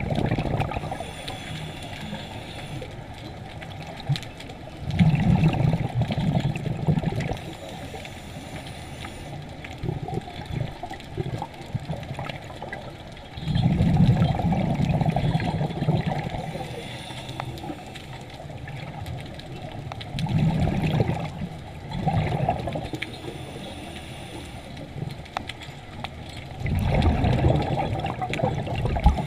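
Scuba diver's breathing heard underwater through a camera housing. Muffled, gurgling bursts of exhaled bubbles from the regulator come about every seven seconds, with a quieter hiss in between.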